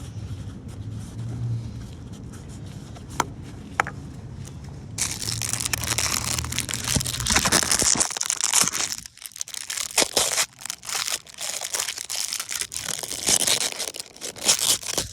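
Plastic crinkling and rustling as new parts and their wrapping are handled, starting about five seconds in and running in dense crackling spells, with two light clicks before it.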